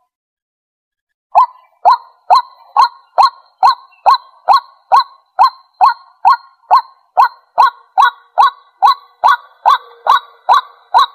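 White-breasted waterhen calling: short, loud notes repeated evenly a little over two a second, each falling slightly in pitch, after about a second of silence. It is a recorded call played as a decoy to lure waterhens.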